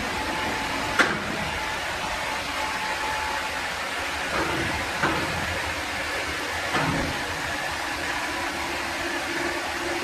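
Woodworking machinery running with a steady, even noise, with a few sharp knocks over it: a loud one about a second in and weaker ones around the middle.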